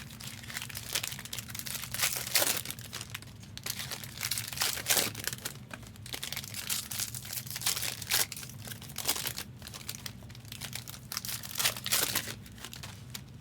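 Plastic trading-card pack wrappers crinkling and rustling as they are handled, with irregular sharper crackles throughout.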